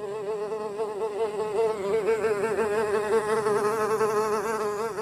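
A fly buzzing in flight: a continuous drone whose pitch wavers rapidly up and down, growing a little louder about two seconds in.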